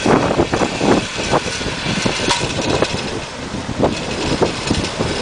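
Wind buffeting the microphone in an irregular, loud rumble, with a few sharp knocks through it.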